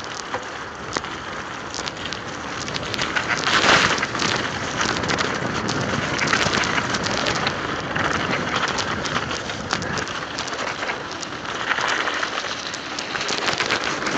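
Mountain bike tyres rolling over wet ice and slush, a steady hiss with many small clicks and rattles, swelling in places.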